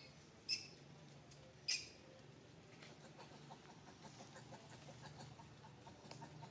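Two short, high chirp-like animal calls about a second apart, over a faint steady low hum. From about halfway there is faint rapid chattering.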